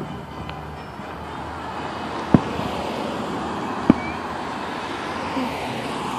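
Two sharp bangs of distant aerial fireworks bursting, about a second and a half apart, over a steady wash of road traffic noise.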